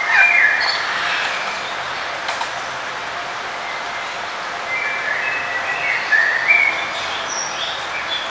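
Songbirds chirping in short, scattered calls and trills, a cluster at the start and another about five to seven seconds in, over a steady background hiss.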